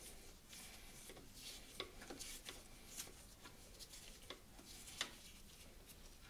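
Faint metal-on-metal scraping and small clicks of a flat-blade screwdriver turning out the lock screw of the pinion shaft in a 1940 Chevy's rear differential, with a few sharper ticks, the clearest about two, three and five seconds in.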